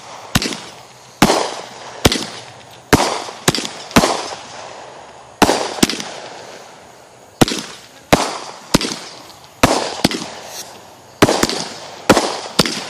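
Fireworks going off: a string of about fifteen sharp bangs at uneven intervals, each fading away over a fraction of a second.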